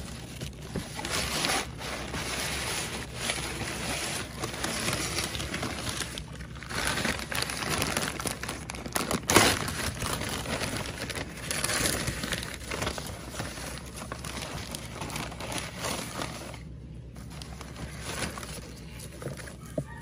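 Newspaper wrapping crinkling and rustling as it is unwrapped by hand, in fits and starts, with a louder crackle about nine seconds in and two short pauses.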